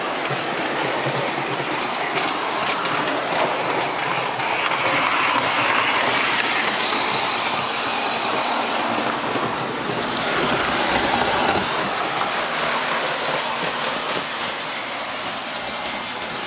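O-gauge model passenger train rolling along the layout track: a steady rumble and clatter of metal wheels on the rails, growing louder as it passes about five to twelve seconds in, then easing off.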